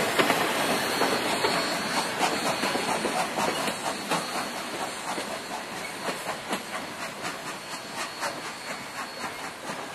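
Steam-hauled passenger train rolling away, its wheels clicking over the rail joints at about three beats a second and fading as it goes.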